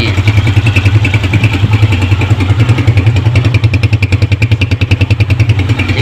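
Honda CG 125 single-cylinder four-stroke engine idling with a steady, even beat and no knock or rattle. The loose rivets on its flywheel magneto rotor have just been welded.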